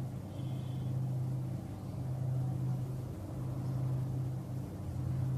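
A steady low mechanical hum over a low rumble, dipping briefly a few times.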